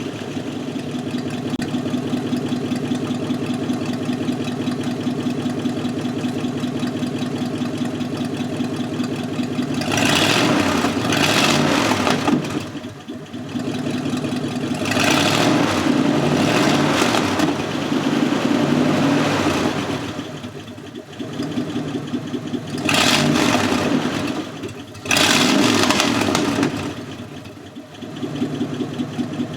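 Dodge Durango engine, freshly restarted after sitting for years, idling steadily for about ten seconds and then revved up four times, settling back to idle between revs.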